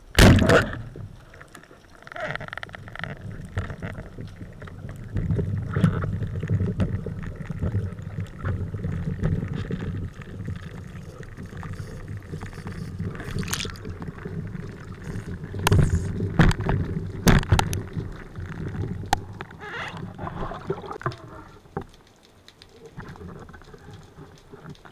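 A rubber-band speargun fires underwater with one loud, sharp crack. It is followed by rumbling, sloshing underwater noise and scattered knocks as the diver swims and handles the gun.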